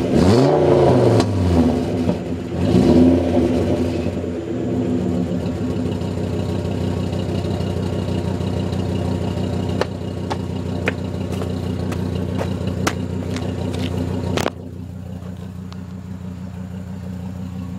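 Seat Toledo VR5 2.3 10-valve five-cylinder engine's exhaust, its end silencer replaced by a straight pipe: two quick revs that rise and fall in the first three seconds, then it settles to a steady idle. A few sharp clicks come near the end, and the sound drops abruptly in level about fourteen seconds in while the idle carries on.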